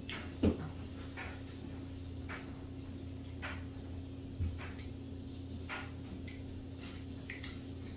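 Faint scattered clicks and scratches of hands working the sheath of an electrical cable, with one louder knock about half a second in, over a steady low hum.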